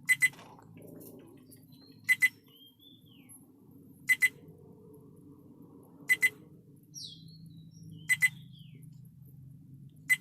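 Viofo A129 Duo dash camera beeping: a pair of short, high beeps repeated every two seconds, over a faint low hum.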